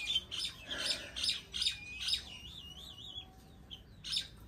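Caged birds calling: a run of sharp, high squawks about two or three a second, then a wavering whistled trill, and two more squawks near the end.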